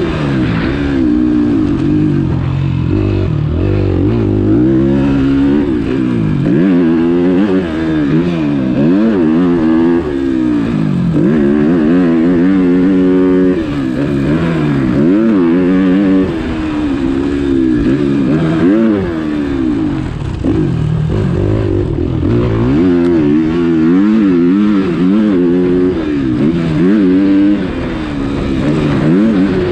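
Motocross dirt bike engine revving up and dropping again and again as the rider throttles on and rolls off, its pitch rising and falling every second or two.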